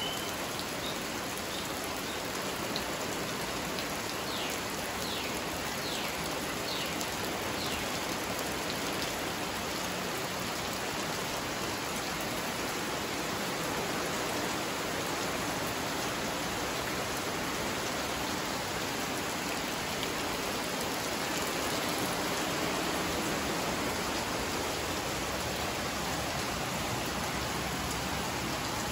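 Tropical rain falling steadily on garden foliage and wet ground, an even rushing hiss that does not let up. A few faint high chirps show through in the first several seconds.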